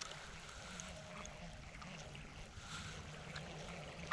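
Faint outdoor background noise with a low steady hum and a few light clicks.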